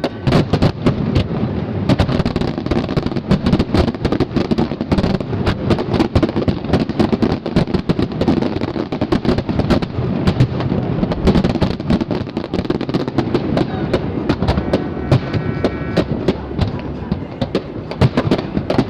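Fireworks display: many aerial shells bursting in quick succession, a dense run of bangs with no pause between them.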